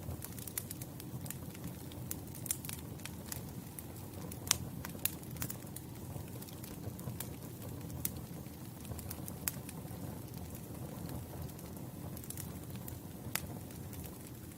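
Campfire crackling: a steady low rush of burning wood under frequent sharp pops and snaps, with a few louder snaps scattered through.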